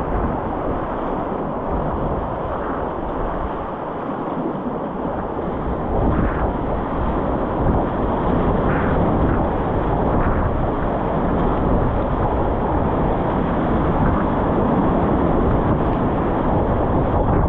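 Whitewater river rapids rushing loudly, mixed with wind buffeting the microphone; a steady noise with a low rumble that grows a little louder about six seconds in.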